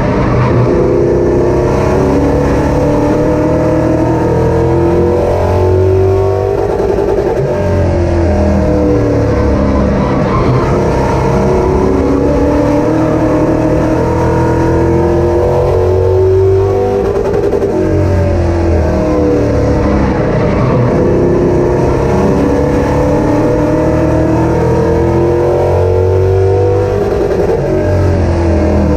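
Race car engine at racing speed, its pitch climbing and then dropping back in a repeating cycle every several seconds as it accelerates and lifts off around a short oval.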